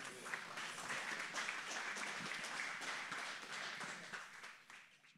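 Congregation applauding, a steady patter of many hands clapping that fades out near the end.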